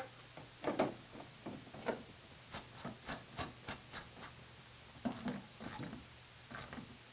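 Black plastic control panel cover being fitted onto a snowblower's control panel by hand: scattered rubs and taps of plastic, with a quick run of small sharp clicks in the middle.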